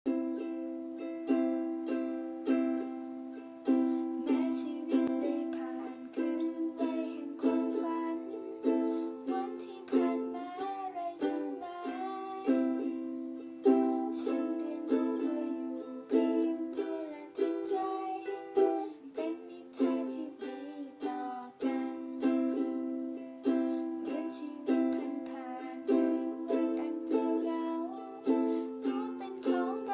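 Ukulele playing chords in a steady, even strum, with a strong stroke about every second or so.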